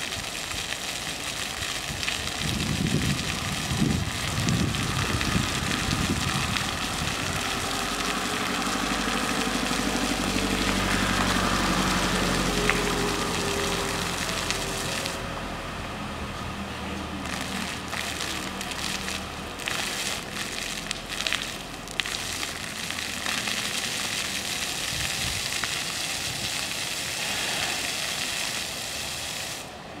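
Water jets and mist nozzles of a ground-level splash fountain hissing and spattering onto paving. A low, steady hum swells in the middle and fades. The spray sound drops off right at the end as the jets stop.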